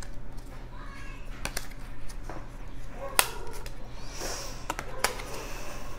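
Pokémon trading cards being handled and laid down one at a time: a few sharp card snaps, the loudest about three seconds in, and a short sliding rustle of card on card a little after four seconds.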